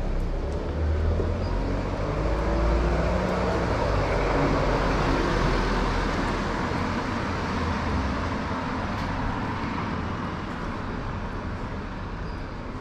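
A car, a dark SUV, drives slowly past close by and moves away: engine and tyre noise that builds to its loudest a few seconds in, then fades steadily.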